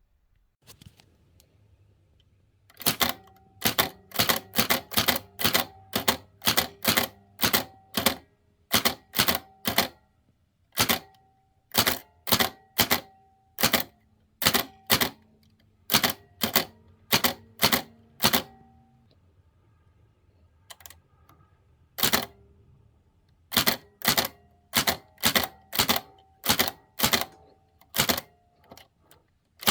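VariTyper (Hammond Multiplex-type) folding typewriter being typed on: each keystroke fires a hammer that strikes the paper and ribbon against the type shuttle from behind, giving sharp clacks with a brief metallic ring. The strokes come about two a second in two runs, with a pause of a few seconds in the middle.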